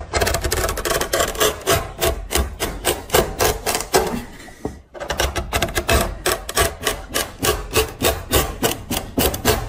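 Steel chisel blade cutting into wood in quick repeated strokes, about three or four a second, with a short pause near the middle.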